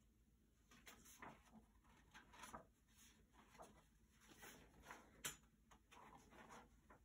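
Near silence with faint rustles and soft taps from a hardcover picture book's pages being turned. The sharpest tap comes about five seconds in.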